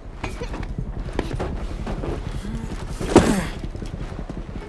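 Scuffs, knocks and thumps of people clambering down from a rooftop onto a balcony, with a heavier thud about three seconds in, over a low steady rumble.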